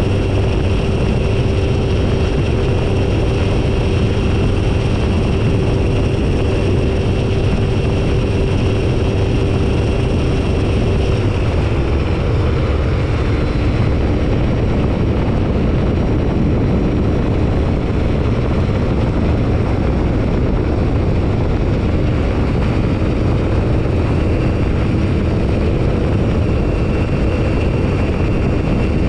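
Phantom ultralight's engine and propeller droning steadily in flight, with heavy wind rumble on the tail-mounted microphone. The engine note steps down a little in pitch about eleven seconds in and holds there, as when the throttle is eased back.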